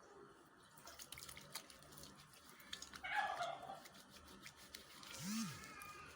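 Soap being worked into a lather between wet hands: soft squelching with many fine wet clicks and crackles of foam, louder for a moment about three seconds in. About five seconds in, a short vocal sound rises and falls in pitch.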